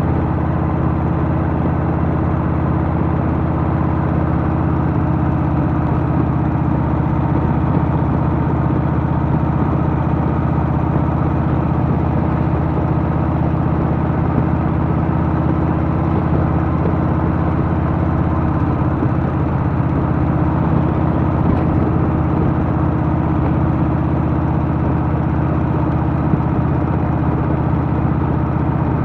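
Harley-Davidson Milwaukee-Eight Softail's V-twin engine running steadily, its pitch holding level with no revving or shifting.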